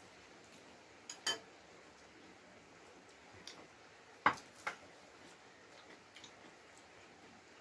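Faint, scattered clinks of metal cutlery and ceramic crockery at a meal: a pair about a second in and a louder pair about four seconds in, with little else between.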